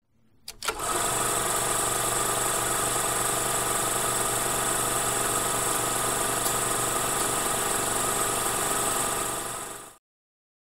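Logo intro sound effect: two quick clicks, then a steady mechanical whirring hum that fades out shortly before it cuts to silence.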